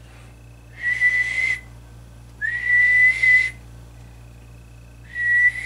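Three whistled notes, each held steady near one pitch for about a second, with the breathy hiss of the whistle; the second note slides up briefly at its start. The whistling is test audio into the CB microphone, modulating the linear amplifier on a dummy load so that the wattmeter swings.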